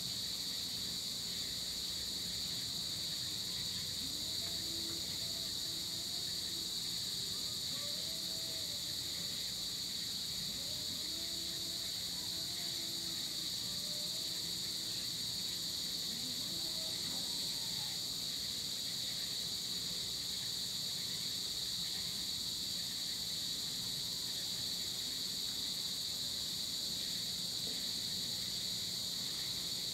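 Dusk chorus of tropical insects, crickets among them: a steady, unbroken high-pitched trilling in several layers. Faint distant calls are heard beneath it for a while mid-way.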